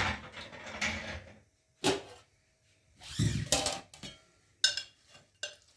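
Cookware being handled while a pan of oil is readied for frying: a rustling clatter at first, a sharp knock about two seconds in, another short clatter, then a few light clicks near the end.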